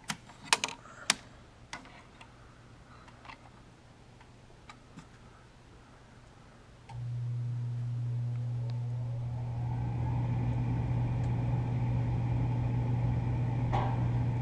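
A few light clicks, then a York gas furnace starting on a call for heat: a steady hum switches on suddenly about seven seconds in, and from about ten seconds a motor spins up and keeps running, the draft inducer getting going before ignition.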